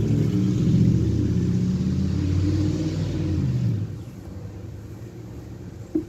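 A motor vehicle's engine running close by, a low drone that wavers slightly in pitch and falls away about four seconds in. A single short click near the end.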